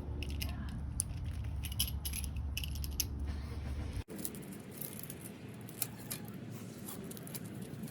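Screen roller pressing rubber spline into the groove of a window-screen frame at a corner: scattered clicks and light rattles of the tool and frame. A low hum underneath stops abruptly about four seconds in.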